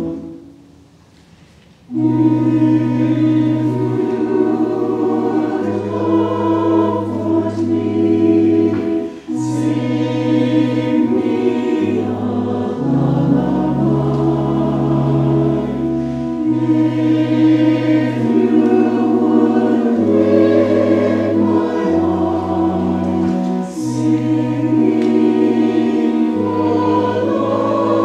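Mixed church choir singing an anthem with organ accompaniment, held organ notes sounding under the voices. The music begins after a short hush about two seconds in.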